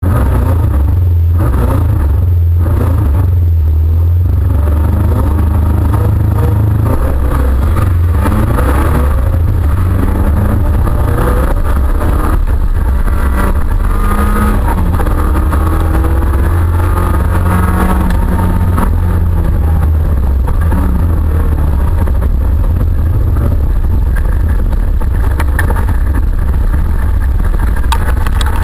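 Autocross car's engine heard from inside the stripped, caged cabin, running loud and revving up and down as the car drives.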